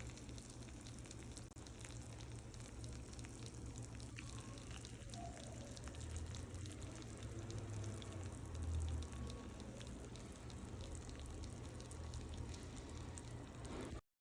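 Food frying in a pan: a faint, steady crackling sizzle over a low hum.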